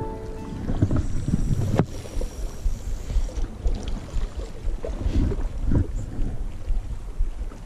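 Gusty wind rumbling on the microphone, with one sharp click about two seconds in.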